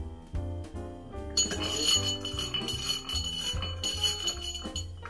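Bar spoon stirring a round ball of ice in a rocks glass: from about a second and a half in, a rapid continuous tinkling of ice and metal against glass. Background music with a steady bass line plays underneath.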